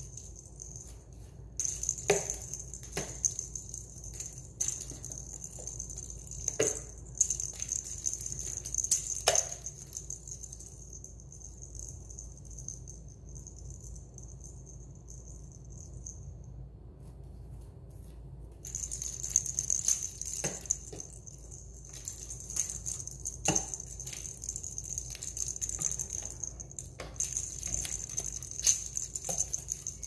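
Small plastic toy ball rattling as a parrot pushes and rolls it over a tile floor, with scattered knocks as it strikes the floor and cabinet base. The rattling fades out about a third of the way in, stops for a few seconds, and starts again.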